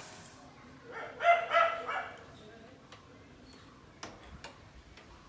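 A dog barks three times in quick succession about a second in. Before that, a high hiss dies away just after the start, and a few faint clicks follow the barks.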